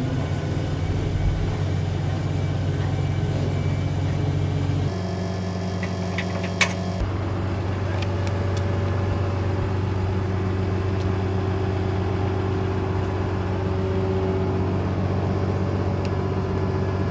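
Volkswagen Beetle's air-cooled flat-four engine running steadily, its note shifting abruptly about five seconds in and again about seven seconds in. A single sharp click sounds just before the second change.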